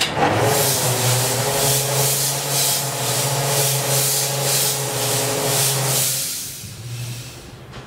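Loud rush of compressed air vented from a parked diesel locomotive's air system. It starts suddenly, hisses steadily with a faint whistling tone and a slight pulsing, then dies away after about six seconds.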